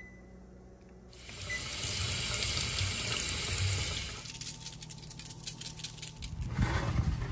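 Kitchen tap running into a sink, turned on about a second in, followed by a stretch of light irregular clatter and splashing, then a fuller rush of water near the end.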